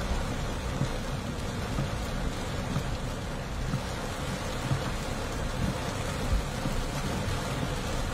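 Heavy tropical downpour heard from inside a moving car: a steady hiss of rain pelting the roof and windshield over a low rumble from the car driving through the wet street.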